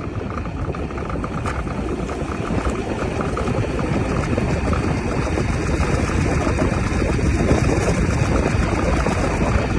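Isinwheel X3 Pro electric scooter being ridden: a steady rumble of wheels and wind with a faint repeating tick in the first few seconds, the noise from the rear wheel area that the owner is recording. It grows a little louder as it goes.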